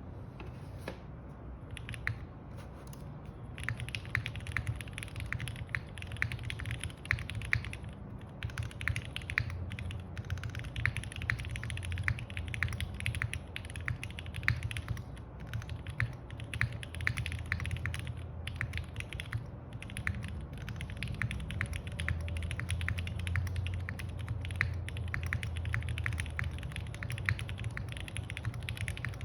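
Typing on a Unikorn R2.1 mechanical keyboard with lubed Gateron Milky Black linear switches on an FR4 plate, under GMK keycaps: a fast, continuous run of keystroke clacks. It starts with a few scattered keystrokes and becomes steady after about three seconds, with a few short pauses.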